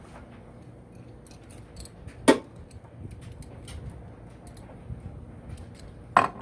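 Small metallic clicks and clinks as a negative battery cable terminal and tools are fitted onto a side-post terminal adapter, with a sharp clack about two seconds in and another near the end.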